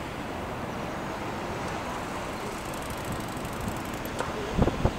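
Steady noise of road traffic passing close by, with a cluster of sharp thumps near the end.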